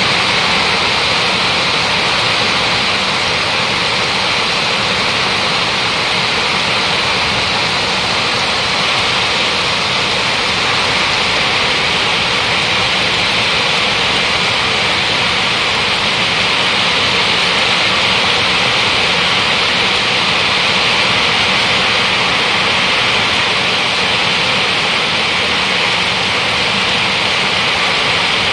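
Heavy rain pouring down, a loud steady hiss that keeps up without a break.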